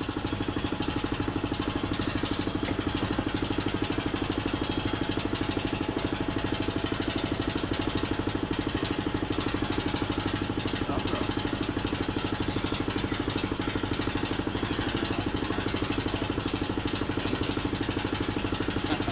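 Piston air compressor running steadily, a fast, even mechanical pulse that holds unchanged throughout.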